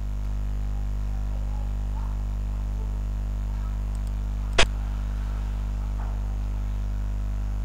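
Steady low electrical hum, with a single sharp click about four and a half seconds in: the xiangqi program's piece-move sound as the red advisor is placed.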